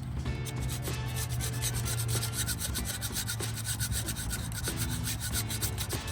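Rapid back-and-forth scrubbing strokes on an LS V8 engine block, several strokes a second, as old gasket glue and gunk are cleaned off it.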